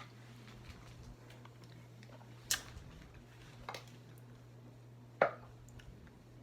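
Quiet room with a steady low hum, broken by a few sharp clicks and taps from soda bottles being handled and drunk from; the loudest comes about five seconds in.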